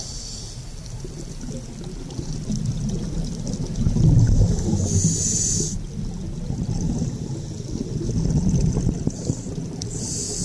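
Scuba regulator breathing underwater: a short hiss on each inhalation, then a low bubbling rumble as the exhaled air escapes, in about two full breaths.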